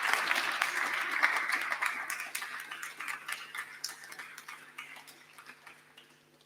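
Audience applauding, the clapping thinning out and fading away to near silence over about six seconds.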